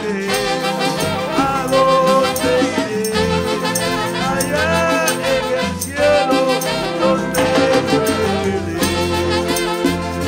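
Live band playing an instrumental break, with an alto and a tenor saxophone carrying the melody over electric bass and percussion.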